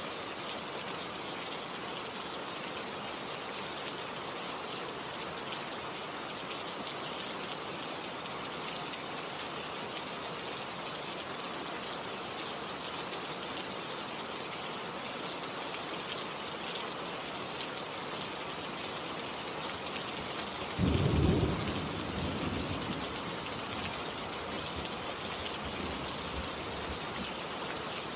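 Steady rain falling, with a single clap of thunder about three-quarters of the way through that rumbles low for a couple of seconds and fades.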